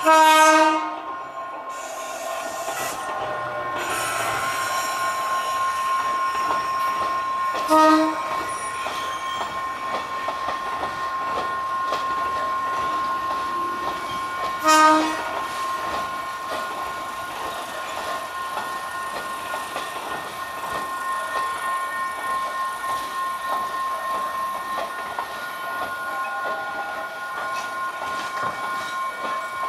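Línea Urquiza electric train sounding its horn three times as it arrives at the station: a longer blast at the start, then two short blasts about seven seconds apart. A steady high-pitched tone and the running noise of the train continue underneath.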